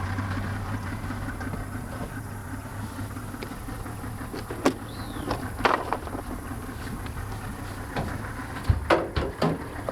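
A boat motor hums low and steadily, fading somewhat after the first couple of seconds. A few sharp knocks and clunks from handling gear in the boat come around the middle, and a quick cluster of them comes near the end.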